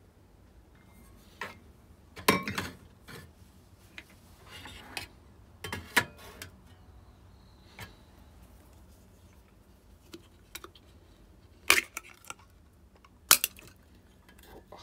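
Cookware and utensils being handled, with scattered clinks and knocks. The loudest knocks come about two seconds in, again a few seconds later, and twice near the end.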